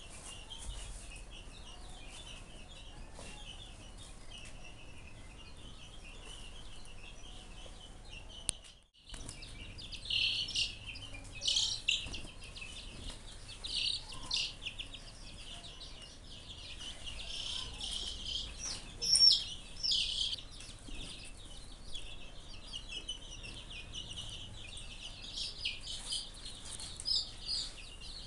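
Baby chickens (chicks) peeping: a steady chorus of high, thin chirps. It cuts out briefly about nine seconds in and comes back with louder, more separate peeps.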